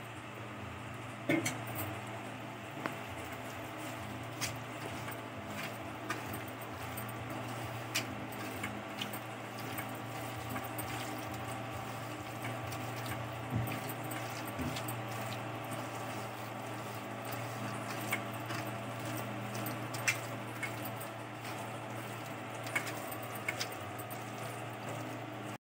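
Hands squishing raw chicken pieces in a thick yogurt-and-spice marinade in a steel plate, with scattered sharp clicks against the metal, over a steady hum.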